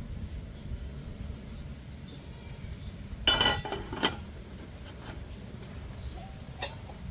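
Metal camping cook pots being stacked and nested together: a clatter with a brief ring about three seconds in, then two lighter knocks, over a steady low background rumble.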